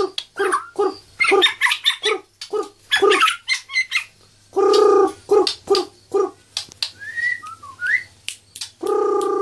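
White-rumped shama (murai batu) calling and singing in its cage: a run of short, sharp pitched notes mixed with quick high chirps and a few rising whistles, with two longer, lower held notes, one in the middle and one starting near the end.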